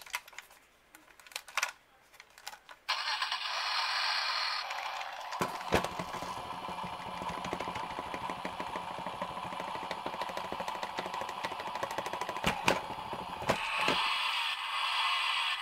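A few clicks as a Chicco battery-powered toy car is handled. About three seconds in its electronic sound effects start playing through its small speaker, and from about five seconds a lower rumble of its motor and wheels joins in, with a few sharp knocks along the way.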